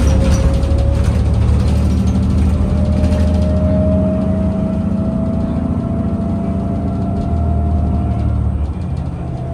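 Inside a New Flyer DE60LFR diesel-electric hybrid articulated bus under way: a steady low drivetrain rumble, with the hybrid drive's whine slowly rising in pitch as the bus gains speed, then fading near the end.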